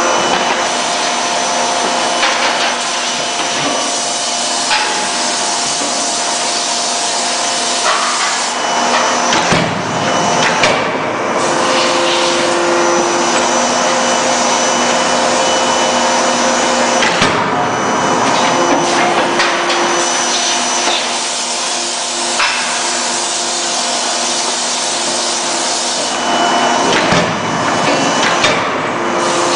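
C92K-50 KJ CNC hydraulic forging hammer working hot steel: a loud, steady rushing machine noise with several held whining tones, broken by a few sharp blows.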